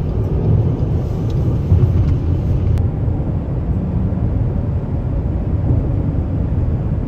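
Steady low rumble of tyre and road noise inside a car cruising at highway speed.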